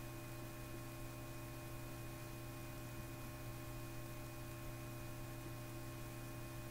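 Faint steady low hum with a few higher steady tones over light hiss: electrical hum and room tone from the recording setup.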